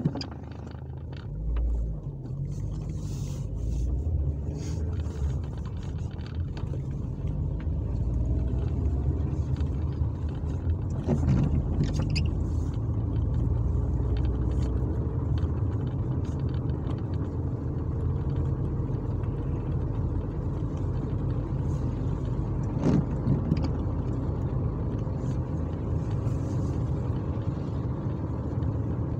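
A car's engine and tyre noise on a wet road, heard from inside the cabin. The car is pulling away, so the rumble grows louder in the first few seconds, and then it runs steadily while the car cruises.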